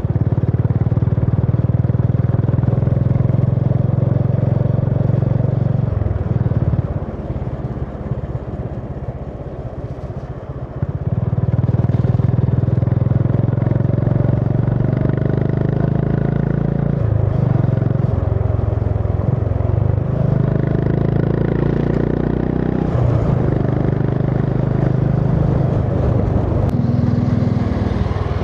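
Honda CB350 H'ness single-cylinder engine running under way as the motorcycle is ridden. It drops in level for a few seconds about seven seconds in, then picks up again.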